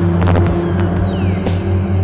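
Dark electronic music from analog synthesizers and a drum machine. A steady low bass drone runs under regular percussive hits and repeated falling high-pitched zaps.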